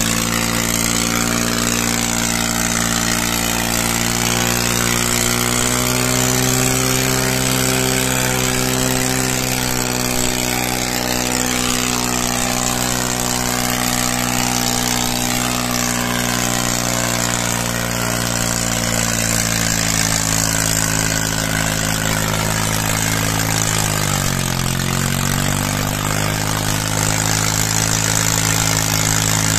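New Holland tractor's diesel engine running steadily under load, pulling a loaded sugarcane trolley. About three-quarters of the way through, its pitch sags briefly and then recovers as the engine lugs down and picks back up.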